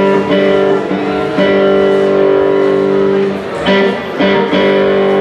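Guitar strumming chords for a sound check. One chord is held ringing for about two seconds, then a few short strums follow near the end.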